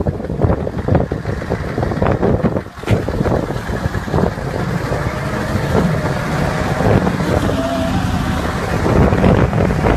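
Loud vehicle engine noise with wind buffeting the microphone, briefly dropping off about three seconds in.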